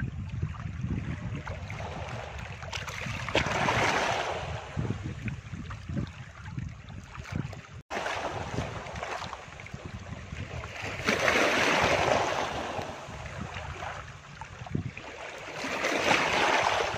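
Rushing, surging sea water with a low rumble underneath, swelling loud three times: about four seconds in, around eleven to twelve seconds, and near the end. There is a brief dropout about eight seconds in.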